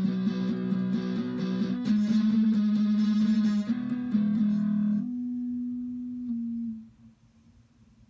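Sunburst Les Paul-style electric guitar picked in a slow melodic line. About five seconds in the playing stops and a last note rings on, fading out about two seconds later.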